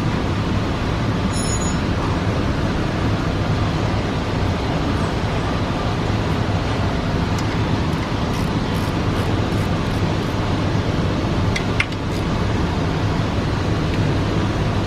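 A steady mechanical hum with a constant low drone and hiss, like a running vehicle or traffic, with a couple of faint clicks near the end.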